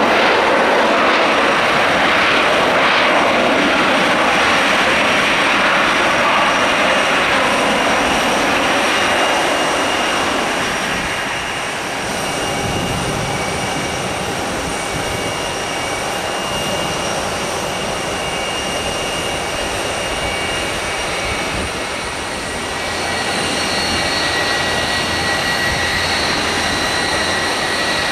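Boeing 757-200 jet airliner rolling out after landing on a wet runway, its engines loud for the first ten seconds or so and then easing off. As it taxis, a steady jet whine with high whistling tones grows louder near the end.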